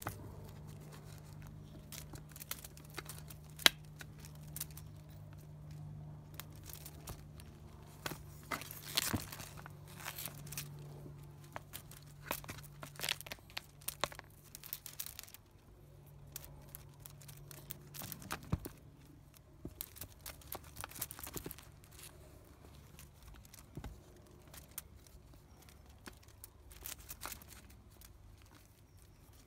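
Crinkling and rustling of a feather-and-tinsel wand toy being shaken and batted by a kitten, in scattered short crackly bursts, busiest a third of the way in and again about two-thirds in.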